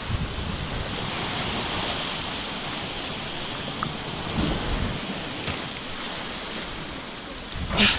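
Sea surf breaking and washing over shore rocks, with wind buffeting the microphone in low rumbling gusts, the strongest just before the end.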